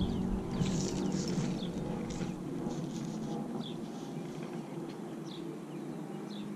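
Small birds giving short, high, falling chirps every second or two over a steady low hum, with a brief rustle about a second in.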